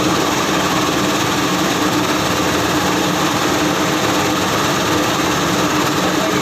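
Plastic scrap washing machine running steadily: a constant motor hum with a steady whine and the wash of material and water churning, no change in speed.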